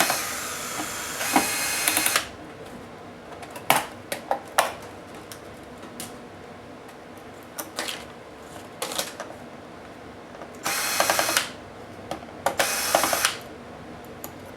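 Small electric screwdriver running in short bursts, backing out screws from the Toshiba L655 laptop's case: one burst at the start and two more near the end, with small sharp clicks of screws and parts in between.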